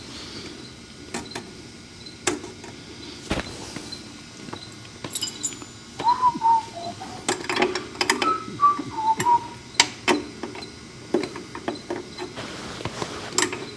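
Hand tools tightening a fitting on the car's steering: scattered metallic clicks and clinks. A few short, wavering chirps come through around the middle.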